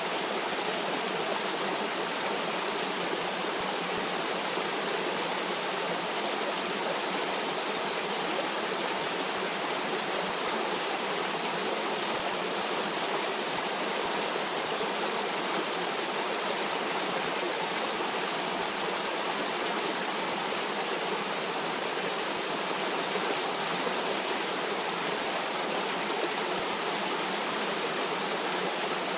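Stream water flowing: a steady, even rush of water with no separate splashes or changes.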